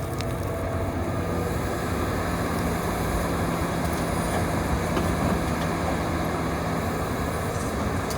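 Hitachi 350 excavator's diesel engine running steadily under working load, with a low steady hum setting in about a second in.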